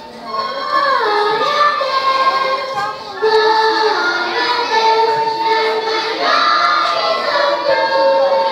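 Children's choir singing a song from a Christmas cantata, the melody moving between held notes and gliding in pitch.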